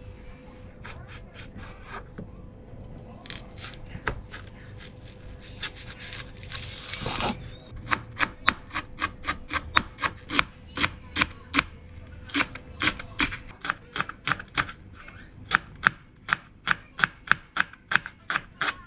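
Kitchen knife mincing green onion on a plastic cutting board: a steady run of crisp chops, about three a second, from around seven seconds in. Before that, a few scattered knocks and a brief rustle.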